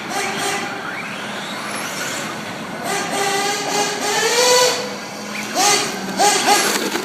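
Radio-controlled cars' motors whining and revving, with short rising and falling sweeps in pitch over the gritty sound of tyres on the ground.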